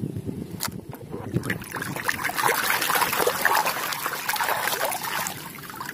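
Water splashing and sloshing in a plastic basin as a hand scrubs a mud-coated plastic toy gun under the surface. It is light at first and gets busier after a second or two.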